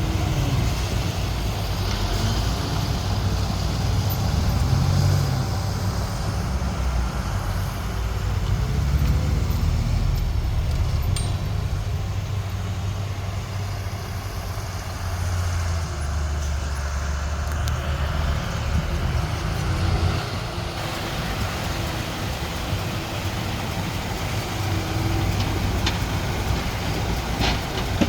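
Diesel engines of a crawler bulldozer and a dump truck running steadily, the low engine note shifting in pitch now and then as the machines work.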